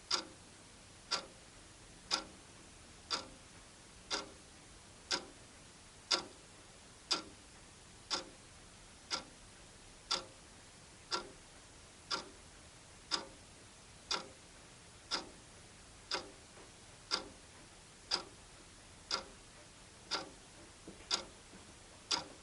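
Wall clock ticking steadily, about one tick a second.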